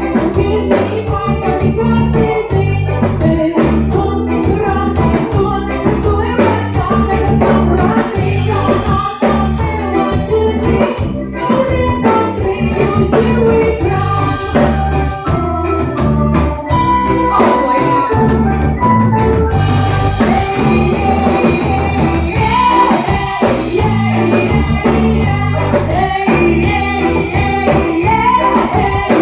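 Loud music with singing over a steady beat, bass and guitar.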